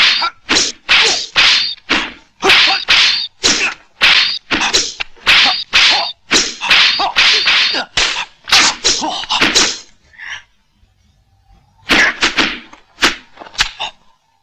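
Dubbed kung fu fight sound effects of wooden staffs: a rapid run of swishes and whacks, about two a second. They stop about ten seconds in, then a few more come near the end.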